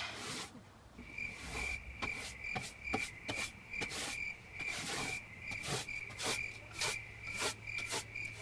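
Hand brush sweeping sanding dust off a freshly sanded wooden tabletop in quick, short strokes, about three a second. A faint, high, evenly pulsing chirp runs alongside from about a second in.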